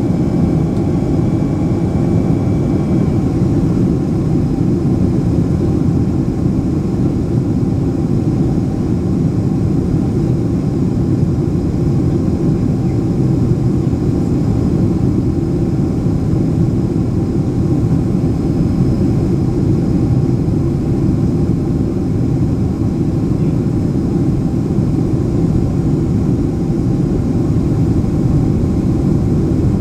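Steady low rumble of a Boeing 767-300ER's jet engines and rushing air, heard inside the passenger cabin. A faint high tone stops about three seconds in.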